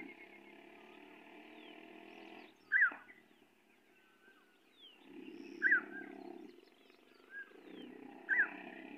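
Distant vehicle engine running in uneven surges, with three short, sharp high-pitched squeals about three seconds apart.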